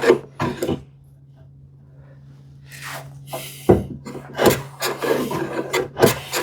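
Freshly sharpened Veritas low-angle jack plane taking short, light strokes across the end grain of a wooden panel, each pass a brief rasping shave. The strokes stop for about two seconds after the first few, then resume in a quicker run.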